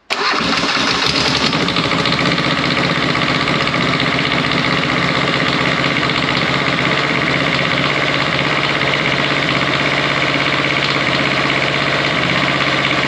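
Kubota two-cylinder diesel engine running steadily, belt-driving a car alternator that is charging two batteries.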